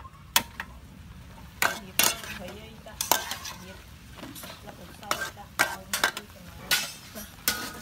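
A metal spatula and spoon scraping and clinking against a stainless steel wok, stir-frying snails in their shells with greens and chili. The strokes come irregularly, about a dozen of them, over a steady sizzle.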